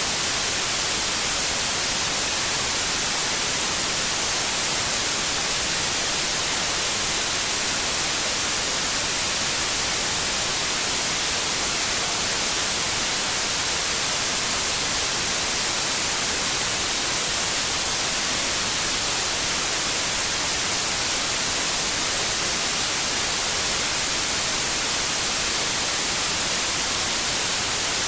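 Steady white noise: an even, bright hiss that never changes.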